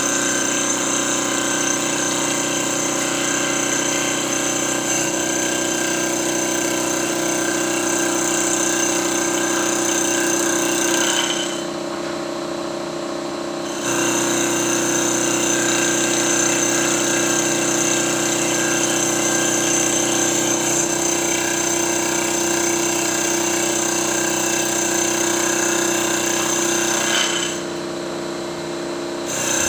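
Mini CNC wood lathe running while turning a wooden cup, with a steady high-pitched whine over a low hum. Twice, for about two seconds each, about twelve seconds in and near the end, the higher part of the sound drops out.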